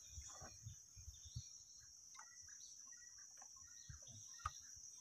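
Near silence: a faint, steady high-pitched insect buzz, with a few soft knocks and one sharper click about four and a half seconds in.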